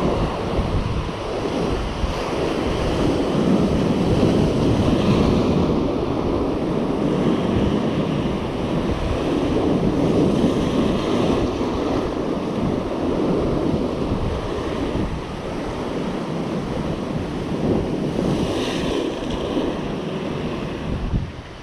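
Ocean waves breaking and washing over a rocky shore, a continuous rush that swells and eases, with a few brief hissing surges, and wind buffeting the microphone.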